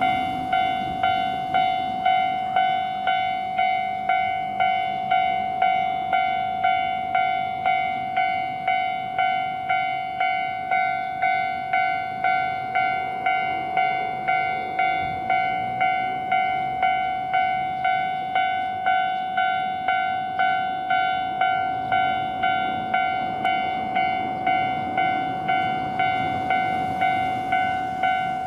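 Japanese railroad level-crossing warning bell ringing steadily with its "kan-kan" strikes, about two a second, each ringing out briefly before the next. The crossing is in its warning state, signalling that a train is approaching.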